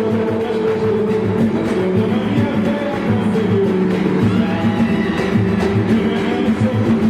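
A live samba band playing, with strings over a steady percussion beat.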